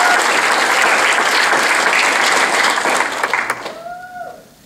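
Audience applauding, the clapping thinning and dying away from about three and a half seconds in.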